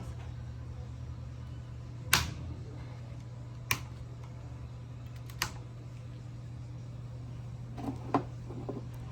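A few sharp clicks and taps, four in all, spread a second or two apart, over a steady low hum.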